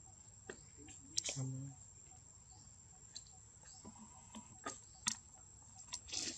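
Scattered light crackles and ticks of dry leaves as monkeys shift about on the leaf-littered ground, with a man's brief word about a second in.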